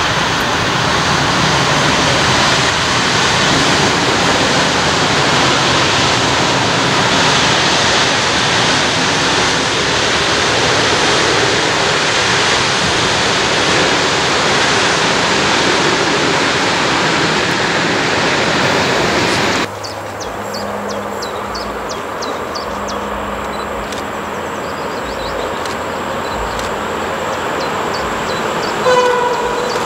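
Container freight wagons rolling past, a loud steady rush of wheels on rail. About 20 seconds in it drops suddenly to a quieter bed with a faint low hum as an electric freight locomotive approaches, and a short horn blast sounds near the end.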